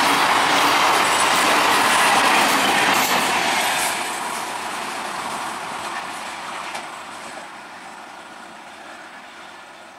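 Electric multiple-unit (EMU) local train running past at speed, its wheels clattering and rumbling on the rails with a loud rushing noise. About four seconds in the sound drops sharply, then fades away steadily.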